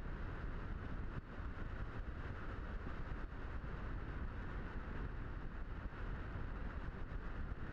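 Steady rush of airflow and wind buffeting on the onboard camera of a Skysurfer RC glider while it glides with its electric motor off.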